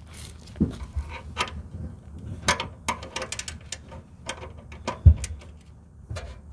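Nutsert (rivet nut) installation tool being worked by hand to set a threaded insert in the car's body: an irregular run of small metallic clicks and ticks.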